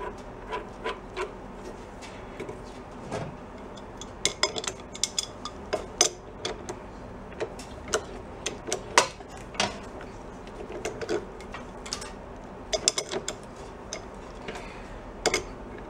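Scattered metallic clicks and clinks of hand tools on a Honda CT70's magneto flywheel as a flywheel puller is fitted and worked onto it.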